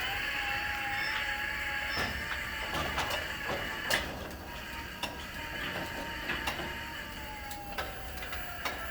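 GDI brushless DC gate operator driving a large parking garage gate: a steady motor whine that slowly falls in pitch toward the end as the operator decelerates, with scattered clicks and knocks from the moving gate.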